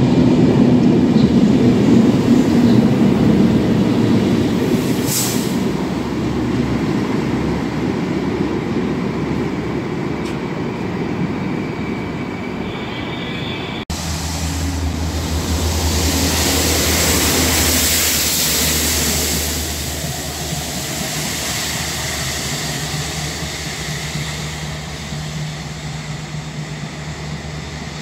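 Two Network Rail engineering trains passing through stations, one after the other. First a locomotive-hauled train with tank wagons rumbles past, loudest at the start and fading away. Then, after a sudden cut about halfway, a yellow multi-purpose vehicle passes with a steady engine hum and a loud hissing rush at its height, easing off near the end.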